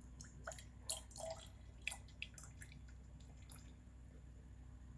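Liquid poured from a plastic reagent bottle into a glass test tube: a string of small, faint drips and splashes that stops about three and a half seconds in.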